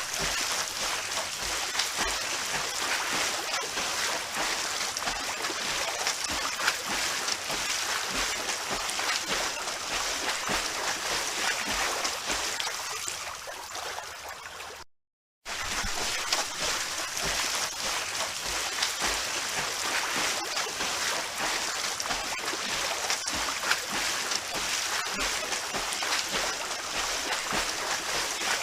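Continuous splashing and churning of water from swimming in a pool, made up of many small quick splashes. About halfway through it fades, cuts out completely for about half a second, then starts again.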